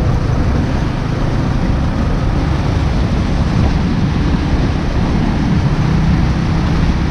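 Motorcycle riding on a dirt road, heard from a camera mounted on the bike: a steady low rumble of engine, tyres and wind rush.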